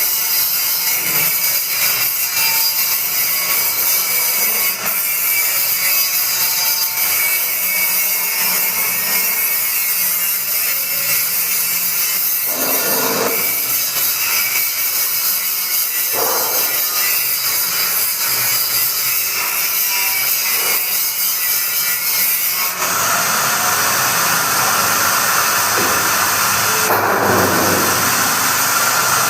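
Heavy-duty blender motor running loudly and steadily with a high whine. About three quarters of the way through the sound becomes fuller and heavier, as if the load in the jar changes.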